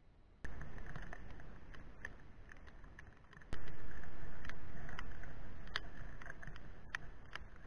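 Steady rush of a fast-flowing river with wind noise and scattered clicks. It starts suddenly about half a second in and gets louder about three and a half seconds in.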